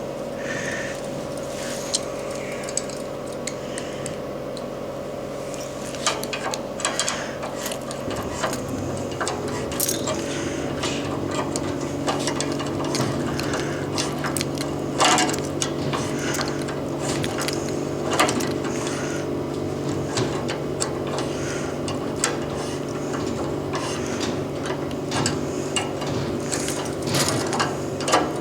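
A steady machine hum that shifts in pitch about eight seconds in, under scattered clicks, clinks and knocks of hand tools and metal fittings being worked.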